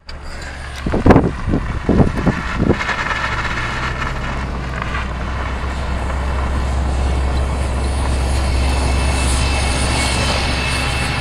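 Steady low rumble of a vehicle driving, heard from inside the car, slowly growing louder. Several knocks come about one to three seconds in.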